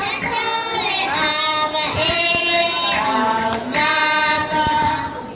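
Young children singing a Samoan song together with women's voices, in a string of long held notes.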